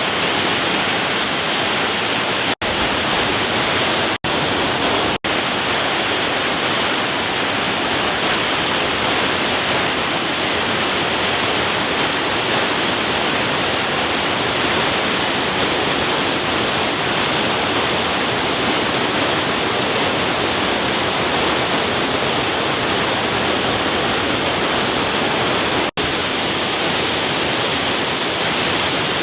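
Waterfall rushing, a loud steady roar of falling water, broken by a few momentary dropouts.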